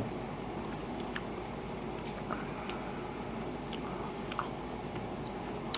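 A person chewing a mouthful of chili and rice: soft wet mouth sounds with a few small scattered clicks, over a steady low room hum.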